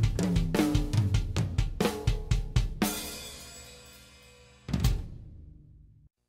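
A drum kit is played in a steady groove of bass drum, snare and hi-hat, ending about three seconds in on a cymbal crash that rings out and fades. One more single hit lands near the middle of the second half and dies away.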